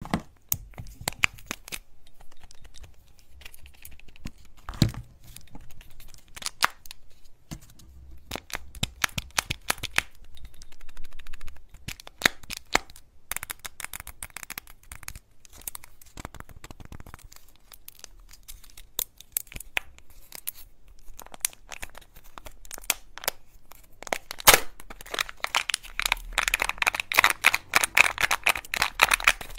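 Hands handling Kinder Joy plastic eggs and their cardboard box, scattered sharp taps and clicks of fingernails on plastic, then the crinkling and tearing of an egg's foil wrapper being peeled, densest near the end.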